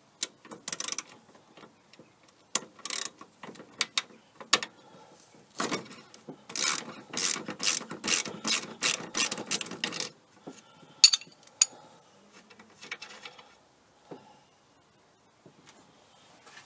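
Hand socket ratchet clicking as it turns a fitting on the car's air-conditioning pipework: scattered clicks at first, then a fast run of clicks in the middle, then only a few faint ones.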